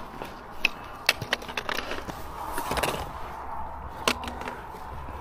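Footsteps on a stony hill path: irregular clicks and scuffs, with a faint low rumble of wind on the microphone.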